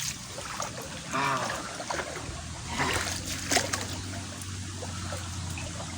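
Hands splashing and sloshing in shallow water while grabbing for fish, with trickling and a couple of sharper splashes about three seconds in.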